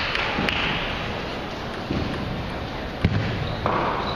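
A few sharp clicks of table tennis balls striking tables and bats, over the steady murmur of a large sports hall where many matches are being played.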